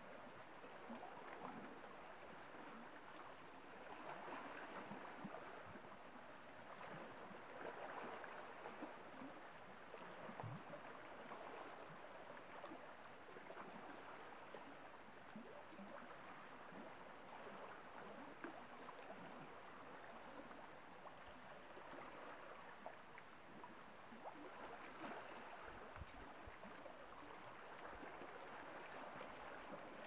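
Small waves on a nearly calm sea lapping faintly against shoreline rocks, the water sound swelling and easing every few seconds.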